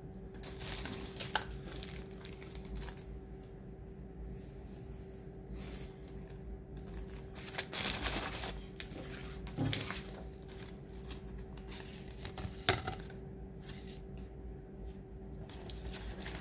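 Tissue paper and plastic-packaged items rustling and crinkling as a cardboard shipping box is packed by hand, with a few light knocks.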